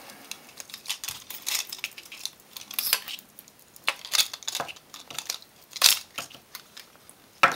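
Plastic clicking, scraping and snapping as a corn cob LED bulb's plastic body is pried apart by hand and its LED circuit boards are pulled out. A string of small irregular clicks, with two sharp snaps about six seconds in and just before the end the loudest.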